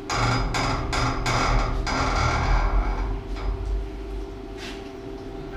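Metal knocking and a loud rushing noise as a gate valve's handwheel is worked on pump-station pipework. The noise dies down about three seconds in, over a steady hum.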